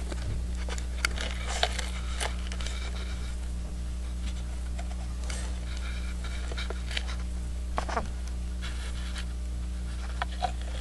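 Steady low electrical hum with scattered faint scratches and small taps from a hand-held mirror-and-cardboard kaleidoscope being handled and shifted, the most noticeable cluster about eight seconds in.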